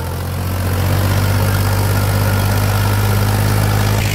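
Powertrac Euro tractor's diesel engine running steadily under load as it pulls a trailer through deep mud, getting a little louder about a second in.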